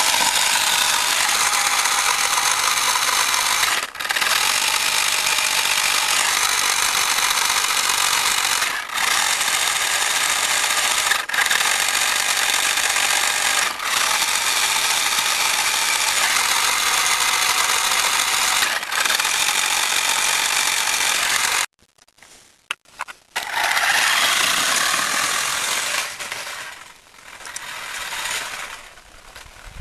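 Small electric drive motor and gearbox of a hobby RC off-road robot car whirring steadily while the car is held up in the hand, dropping out briefly about five times. Past the middle it stops for about two seconds, then starts again and fades unevenly as the car drives away.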